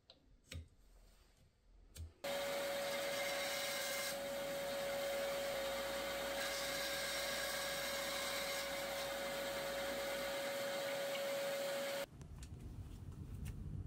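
Bandsaw running with a steady, constant whine while cutting a hardwood dowel to length. It starts abruptly about two seconds in, after a few faint taps, and cuts off abruptly near the end.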